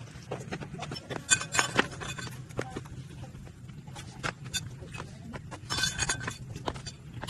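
Scattered, irregular taps and knocks, denser in two short clusters, over a steady low hum.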